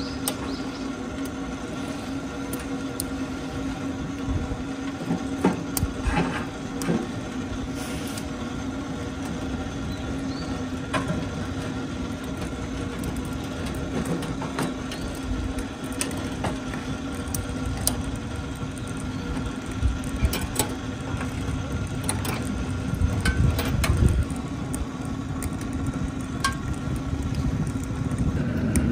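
Wood fire burning in a small homemade stainless-steel tent stove, with scattered sharp crackles and pops over a steady low hum.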